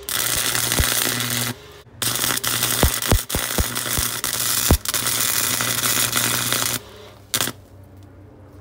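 Stick-welding arc tack-welding a stack of coins clamped in a vise: a loud crackling hiss with sharp pops over a steady hum. It breaks off briefly after about a second and a half, runs about five seconds more, and ends with one short burst.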